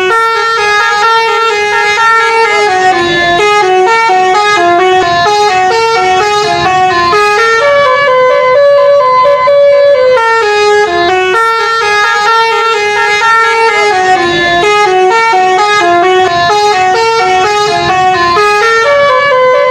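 Bus 'telolet' musical air horn playing a loud, continuous melody of stepping notes, several tones sounding together, the tune repeating about every eleven seconds.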